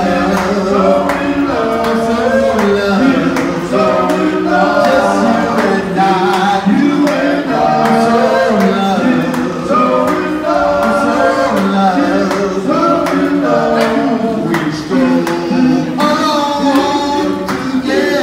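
Male vocal group singing a song in several-part harmony, voices blending over one another.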